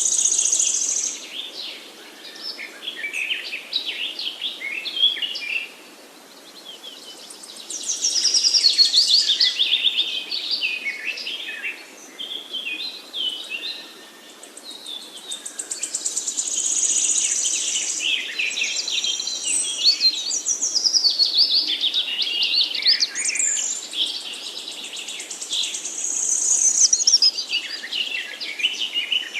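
Several songbirds singing at once in a woodland chorus, with quick overlapping trills and whistled phrases. One louder, high trilled song returns about every eight to nine seconds.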